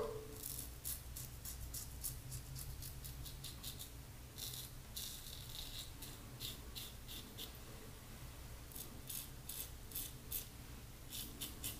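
Safety razor (Maggard V3 head) scraping through lather and stubble in short strokes: faint, crisp rasping in clusters with brief pauses between passes. A steady low hum sits underneath.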